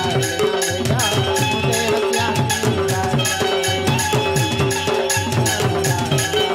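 Instrumental folk music: a melody on held, reedy keyboard notes over a fast, steady drum beat with light rattling percussion.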